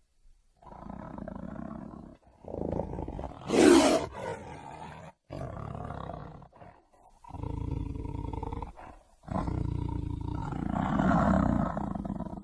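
Tiger roaring and growling in about five long calls separated by short pauses; the loudest, sharpest roar comes about three and a half seconds in.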